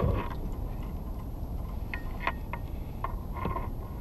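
Wind rumbling on the camera microphone, with a few light clicks and taps as the landed jack is handled and lifted against the plastic kayak.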